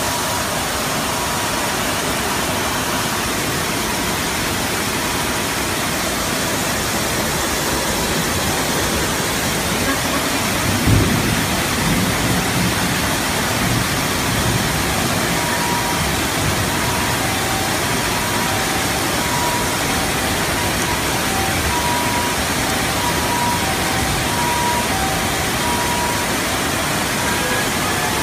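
Heavy rain and floodwater pouring over a wall into a drainage channel: a steady, loud rushing of water. A brief low thump sounds about eleven seconds in.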